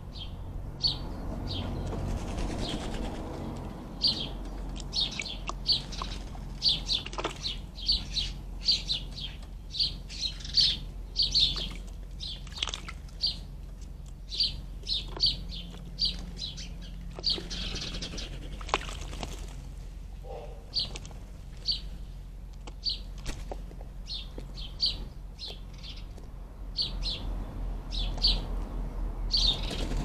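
Garden birds chirping over and over, short high chirps every half second or so, with now and then a flutter of wings splashing in a shallow bird bath as a magpie bathes.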